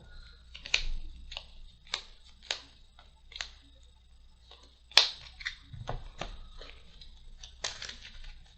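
Trading cards being handled and set down on a table: a string of light, irregular taps and flicks, the sharpest about five seconds in.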